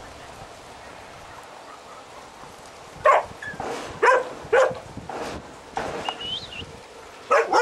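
Dogs barking: a quiet start, then single barks about once a second from about three seconds in, and a fast run of barks near the end.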